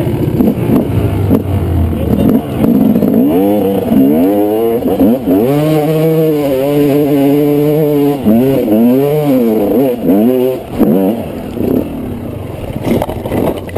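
Dirt bike engine revving up and down while riding a rocky trail. The pitch rises and falls again and again and holds steady for a couple of seconds in the middle.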